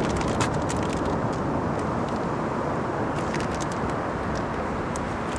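Steady rush of surf and wind on an open beach, with a scatter of small clicks and rattles from hands working in a plastic tackle box.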